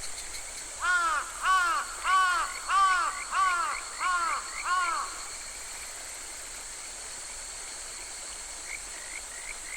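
A crow cawing seven times in an even series, over a steady high-pitched drone that carries on alone after the caws stop.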